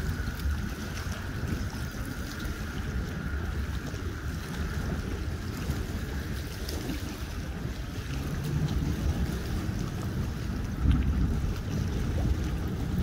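Wind buffeting the microphone over small waves lapping along the shore at a boat ramp, a steady rumbling noise with a short low hum about eight seconds in.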